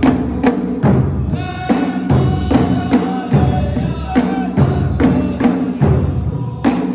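Saudi folk troupe music: drums beat a steady rhythm of about two and a half strokes a second under voices singing long held notes.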